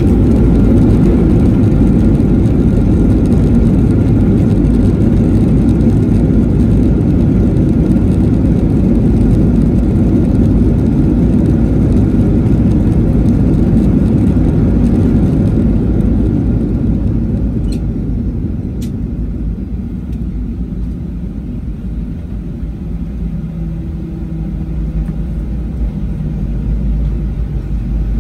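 Cabin noise of a Boeing 737-800 with CFM56-7B engines rolling out on the runway after landing: a loud, steady rumble and roar. It eases about sixteen seconds in as the jet slows, then swells a little near the end.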